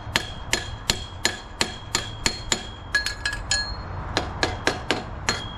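Hammer striking a metal part over and over, about three blows a second with a short quicker run in the middle, each blow leaving a brief metallic ring; the part is being knocked down because it sat too high.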